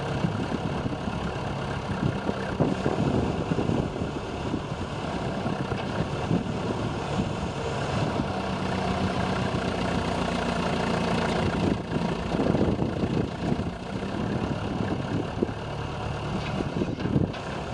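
John Deere 310A loader backhoe's engine running steadily, its note shifting a little around the middle.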